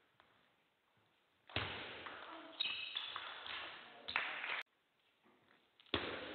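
Table tennis ball knocks on bat and table with hall noise, coming in bursts that drop out to near silence in between. A sharp knock near the end as a rally starts with the serve.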